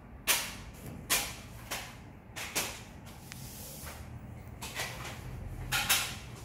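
Plastic cassette tape cases clacking against each other and the table as they are handled: about seven short, irregular knocks, with a close pair near the end.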